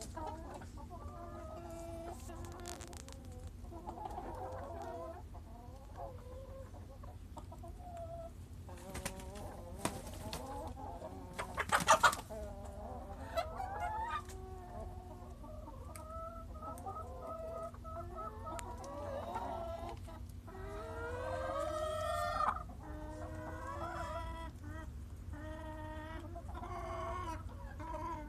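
A flock of hens clucking and squawking, with a brief loud burst of noise about twelve seconds in and a drawn-out rising squawk a little past twenty seconds.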